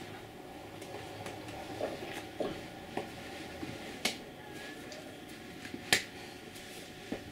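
Hands clapping and brushing against each other while signing, with a few sharp claps, the loudest about six seconds in. A steady faint hum runs underneath.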